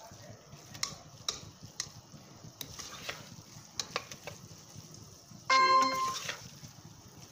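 A spoon stirring and scraping minced meat as it fries in a stainless steel pot, with irregular clicks and knocks of the spoon against the pot over a light sizzle. About five and a half seconds in comes a brief, loud ringing tone.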